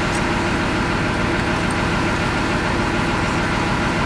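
Motor boat's engine idling with a steady drone, a constant hum with a faint high whine over it, while the boat is held at the jetty.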